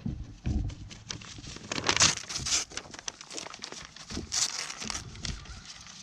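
Paper crinkling and tearing as a goat grabs the paper sign in its mouth, a rustling crackle that rises to its loudest about two seconds in and again past four seconds. There are a few low thumps near the start.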